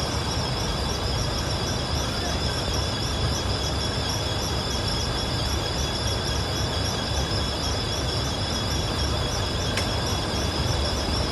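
A steady low rumble, with a chorus of insects trilling high and steady over it, and a single sharp tap about ten seconds in.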